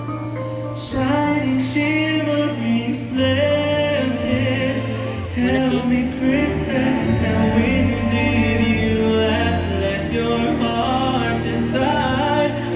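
Fireworks show soundtrack music: a singing voice holds melodic notes with vibrato over steady bass notes.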